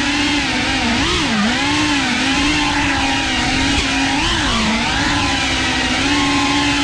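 FPV quadcopter's motors and propellers whining at a steady high pitch, the pitch dipping and swinging back up several times.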